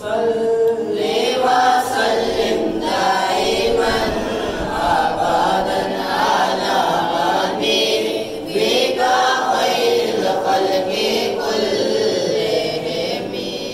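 A group of boys' voices chanting together in unison, unaccompanied, in a devotional Islamic chant. It dies away at the very end.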